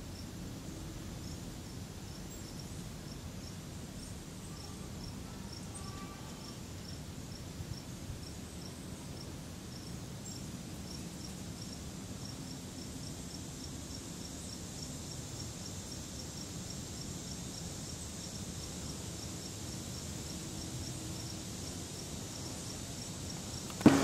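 Insects chirping: a high, short chirp repeating about twice a second over a thin, steady high-pitched drone, against a low steady outdoor rumble.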